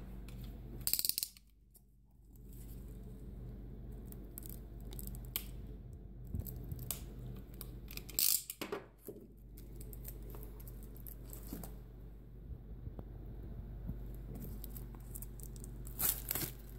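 Plastic shrink-wrap on a sketchbook being slit with a snap-off utility knife and peeled off: scattered scratches, clicks and crinkles over a steady low hum, louder about a second in, about eight seconds in and near the end.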